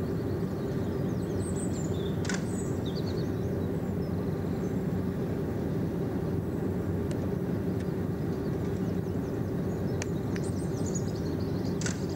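A Hastings diesel-electric multiple unit's English Electric diesel engine running with a steady low hum while the train stands at a platform. Birds chirp over it several times, and there are a few sharp clicks about two seconds in, about ten seconds in and near the end.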